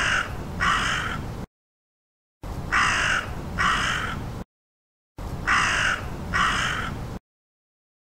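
Crow cawing: two caws in quick succession, the pair repeated three times about every two and a half seconds, with each pair's background cutting in and out abruptly.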